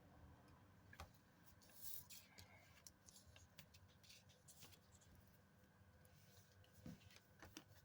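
Near silence with faint scattered ticks and light scraping from paper scratch-off lottery tickets being handled.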